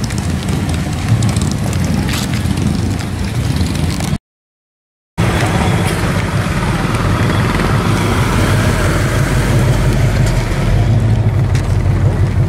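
A motor vehicle engine running with a low, steady rumble. The sound drops out completely for about a second around four seconds in.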